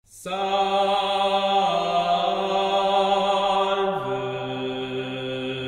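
Slow background music of long held, chant-like tones, starting a moment in; the held notes shift down to a lower chord about four seconds in.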